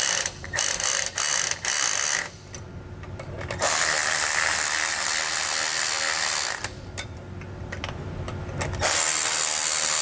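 Milwaukee cordless ratchet running a 9/16 socket to snug nuts down on U-bolts. It starts with a string of short runs, pauses, then runs steadily for about three seconds, pauses again, and starts another long run near the end.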